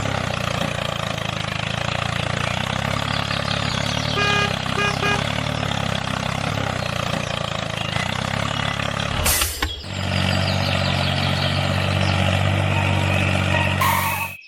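Steady engine-like running hum from a truck, with two short beeps about four to five seconds in. About nine and a half seconds in it breaks with a click and carries on at a slightly different pitch.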